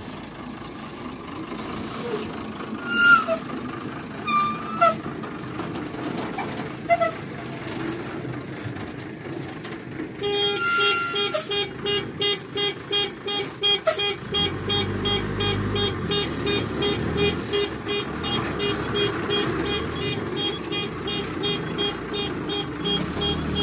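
Diesel dump truck running while backing up, its reversing alarm starting about ten seconds in and beeping rapidly and evenly, about two to three beeps a second. The engine rumble swells for a couple of seconds partway through the beeping, and a few short chirps sound before it starts.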